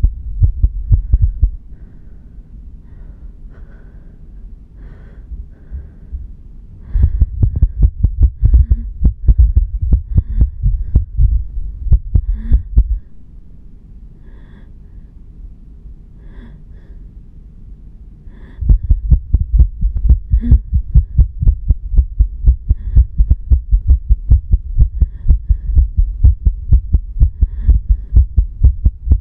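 A person's heartbeat, fast and irregular, heard right after an episode of cerebral anemia (near-fainting), with faint breath sounds in and out. The beats drop much softer from about 1.5 to 7 seconds in and again from about 13 to 18.5 seconds, then come back loud.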